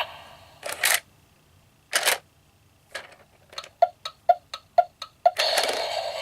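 Animated monster alarm clock Halloween prop clicking between its spoken phrases: two short noisy bursts, then a run of clock-like ticks about four a second, and a louder sustained sound starting near the end.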